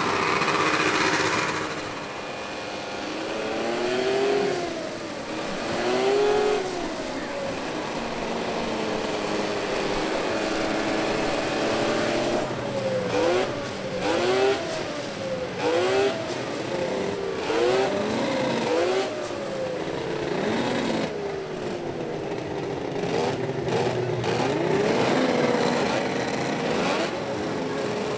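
Snowmobile engines revving up and down, with a run of short, quick throttle blips in the middle.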